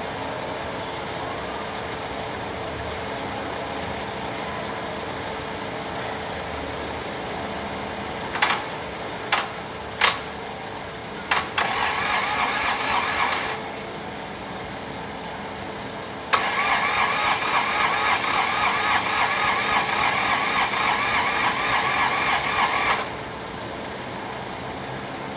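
Kubota D905 diesel being turned over by its starter: three sharp clicks, then a short crank of about two seconds and a longer one of about six and a half seconds, each stopping abruptly without the engine catching, in keeping with the hard-starting problem. A steady hum runs underneath.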